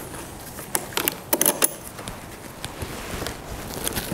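Metal clinks and rattles of a 10 mm wrench and the negative battery cable's clamp being worked loose and lifted off the battery post: a run of sharp clicks between about one and two seconds in, and a few more later.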